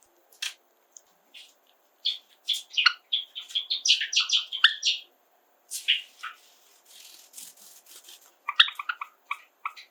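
Java sparrows chirping and singing: a fast run of clicking, bell-like notes about two seconds in, a few more calls near the middle, and another burst of quick notes near the end. A soft rustle comes just after the middle.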